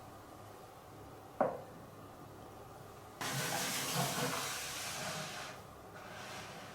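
A glass marble knocks once on wooden Cuboro blocks about a second and a half in. From about three seconds in it rolls along a wooden track for a couple of seconds with a steady rushing noise, fading near the end.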